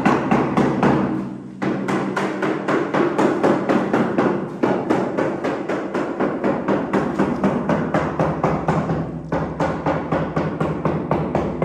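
Background music with a fast, steady percussive beat over held notes.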